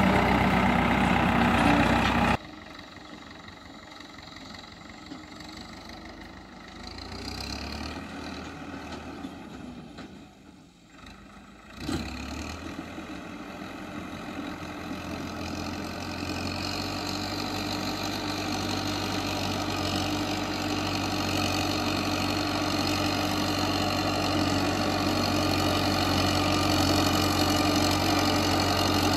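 Diesel tractor engine running steadily. It drops away abruptly about two seconds in and stays faint, nearly fading out just before the middle, then comes back suddenly and runs on, slowly growing louder.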